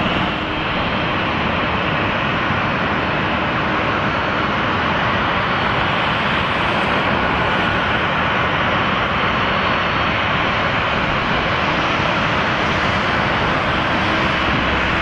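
Aircraft engines running, a steady loud noise that holds evenly throughout, with a faint steady whine showing through.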